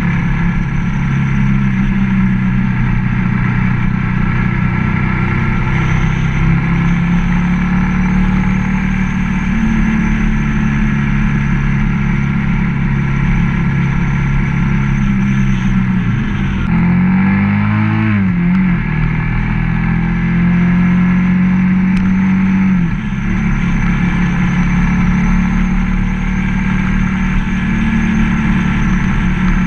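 Ducati ST3s V-twin motorcycle engine running at steady riding revs under a constant rush of wind and road noise. A little past halfway the engine note dips and climbs again, then settles back to a steady run.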